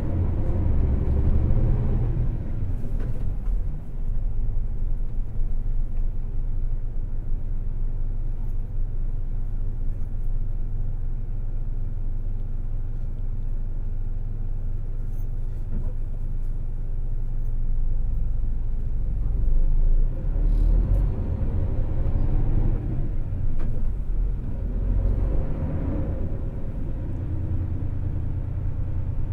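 Hino Selega LKG-RU1ESBA coach's diesel engine and road noise heard from inside the moving bus: a steady low rumble at speed, swelling for a few seconds about three-quarters of the way through.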